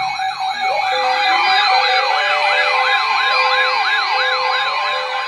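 Several electronic sirens in yelp mode sounding together: quick rising-and-falling sweeps about three a second, overlapping out of step, over steady held tones.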